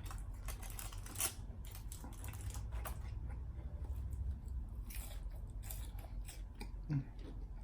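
A person chewing food close to the microphone, with irregular crunchy clicks and mouth sounds.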